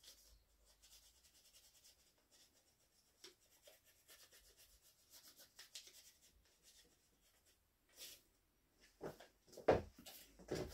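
Pencil scratching on tracing paper laid over the end of a hazel stick: faint, quick scratchy strokes as the outline is drawn. A few louder knocks and bumps near the end as the stick is handled.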